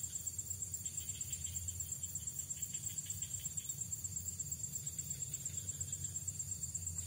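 Insects trilling in a steady, high, rapidly pulsing chorus, with a low steady hum underneath.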